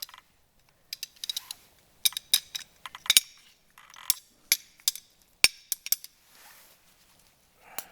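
Hand tools and metal brake parts clicking and clinking in scattered, irregular strikes, during work on a car's rear drum brake.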